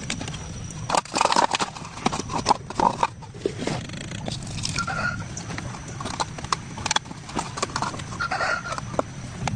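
Irregular clinks and knocks of hand tools on metal car parts, starting about a second in, over a steady low hum.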